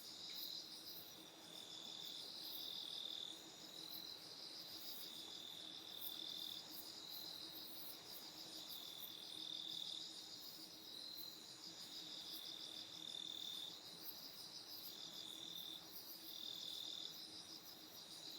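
Several night insects calling together: a steady pulsing trill, with short high chirps repeating about once a second over it.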